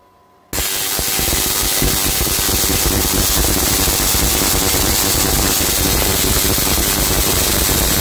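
Dual microwave-oven-transformer Tesla coil with an aluminium flat-bar primary coil, firing: a loud, continuous sparking noise from its streamer discharges that starts suddenly about half a second in and holds steady.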